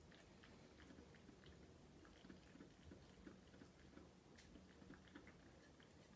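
Faint sounds of a cat eating from a stainless steel bowl: soft chewing with small, irregular clicks.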